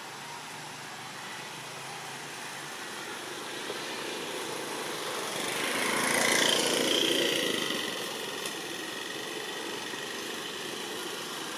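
An engine passing by, growing louder to a peak about six seconds in and then fading back to a steady hum.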